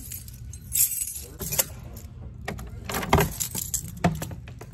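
A bunch of keys jangling as a key is worked into a door's deadbolt lock and turned, with a series of sharp metallic clicks and a louder clack of the lock about three seconds in.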